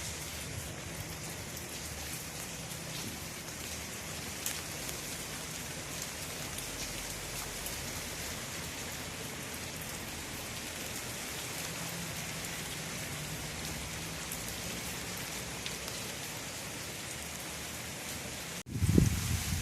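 Steady rain falling and pattering on surfaces, with scattered individual drop ticks. A louder low rumble starts just before the end.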